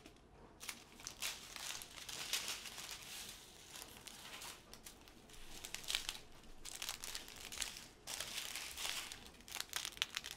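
Small plastic bags of round diamond-painting drills crinkling and rustling as they are handled and sorted, in irregular bursts of crackly rustles.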